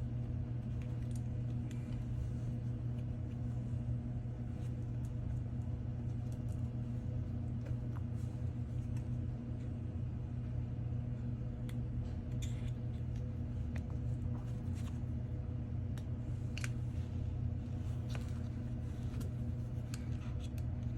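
Steady low hum, with scattered faint clicks and scrapes of a prying tool working under an iPhone 14's back glass.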